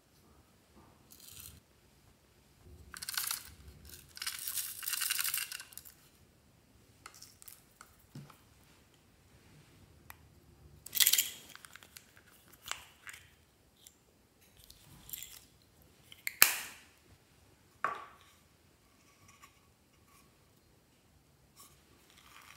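Small plastic novelty containers of slime toppings being handled: a few seconds of rustling and scraping, then several sharp plastic clicks and snaps as the containers are opened and closed.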